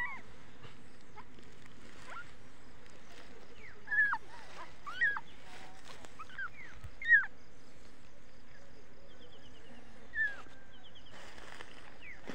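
A small kitten mewing: short, high calls that bend in pitch, every second or two, the loudest about four, five and seven seconds in, over a steady hiss.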